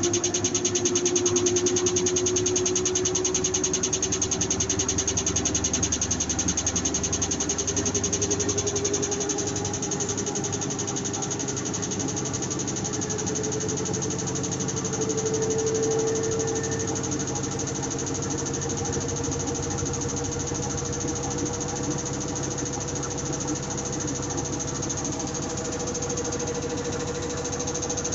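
WF 10724 washing machine spinning up, its motor whine rising slowly in pitch over a continuous fast clattering rattle. This is the spin-cycle rattle whose cause a repair technician could not find.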